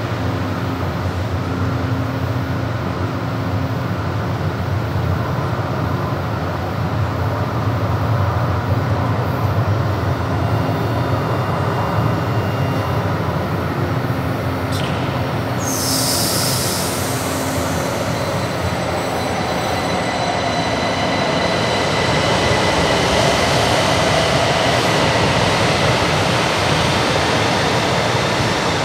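São Paulo Metro Line 2 train at an underground platform, running with a steady low hum. About halfway through there is a short sharp hiss of air. Over the last third, motor whine and wheel squeal rise and grow louder as a train gets under way.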